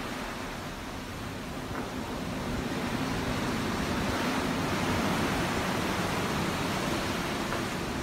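Ocean waves washing in, an even rush of surf that swells louder from about two seconds in and then holds.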